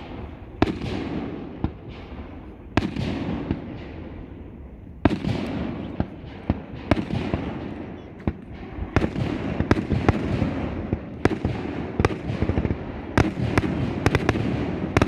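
Aerial fireworks bursting: a string of sharp bangs with a rolling rumble between them. A few spaced bangs come in the first five seconds, then they come thick and fast through the second half.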